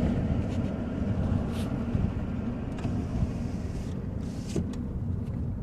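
2010 Toyota Matrix driving, heard from inside the cabin: a steady low rumble of road and engine noise, with a few brief hiss-like sounds.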